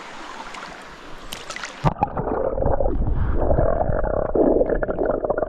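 Running river water, then, about two seconds in, the sound turns suddenly muffled and louder: a gurgling rush of water with all the high sounds cut off, as when the microphone goes under the surface.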